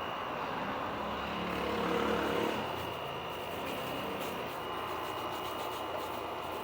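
Distant engine hum over steady background noise, swelling and passing about two seconds in, with a thin steady high tone throughout.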